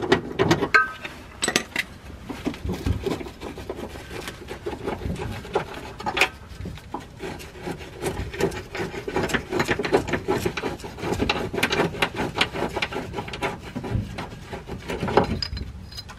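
Hand ratchet wrench clicking in irregular runs of quick ticks, with metal rubbing and clinking, as the penetrant-soaked 13 mm muffler hanger bolts are worked loose.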